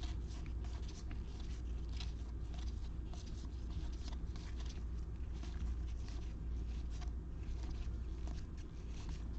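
Trading cards being flipped and slid one after another by hand: a quick, uneven run of soft card flicks and rustles, several a second, over a steady low hum.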